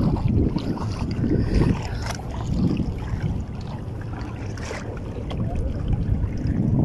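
Wind buffeting the microphone: an uneven low rumble that swells and eases in gusts, with a few light clicks about two seconds in and near the five-second mark.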